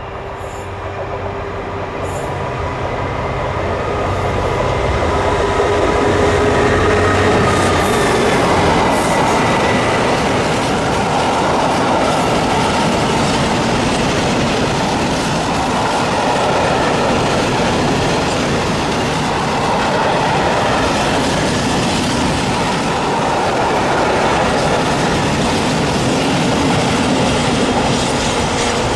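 Class 66 diesel locomotive hauling a rake of empty steel wagons past at speed. Its engine note is heard in the first several seconds, then gives way to the steady rumble and clatter of the wagons' wheels on the rails.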